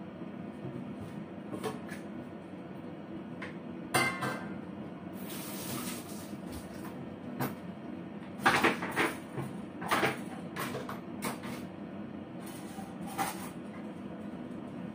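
Kitchen clatter: several sharp knocks and clacks, one about four seconds in, a cluster a little past halfway and another near the end, over a steady low hum.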